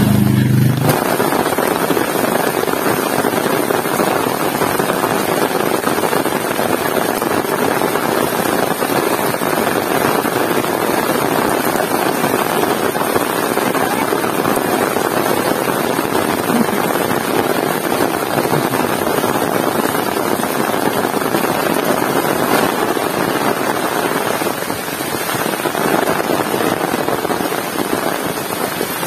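Heavy rain falling steadily: a continuous even hiss that eases slightly near the end.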